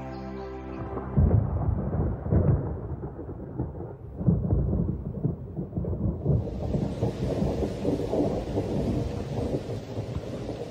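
Thunderstorm: thunder rumbling in low rolls with loud swells, then heavy rain setting in as a steady hiss about six seconds in.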